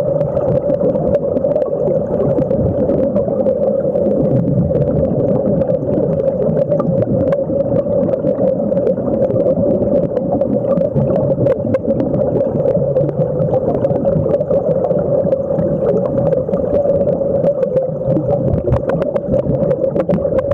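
Muffled underwater sound of air streaming and bubbling out of surface-fed diving helmets: a steady, loud rushing and bubbling with a constant hum and scattered small crackles.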